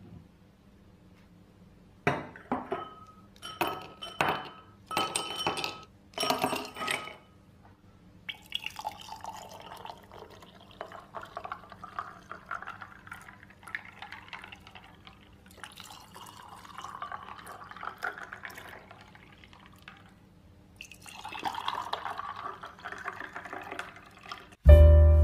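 Five sharp, ringing glass clinks, then juice poured from a glass jug over ice into drinking glasses, a splashing stream in separate pours. Piano music starts just at the end.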